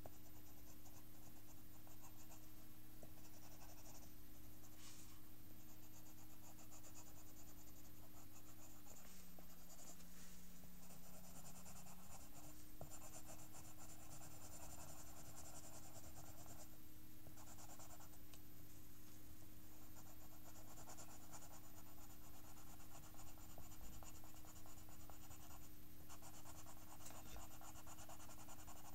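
Pencil scratching on paper in short shading strokes, on and off.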